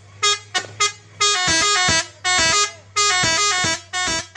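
Truck telolet horn, a multi-tone air horn, playing a tune in stepped notes: three short toots, then longer held notes.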